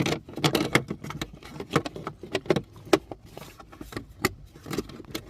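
Plastic clicks and knocks of the cabin air filter access door on a 2018 Lexus GX 460 being pushed back into place and its clips snapped shut. There are many sharp clicks, the loudest at the very start.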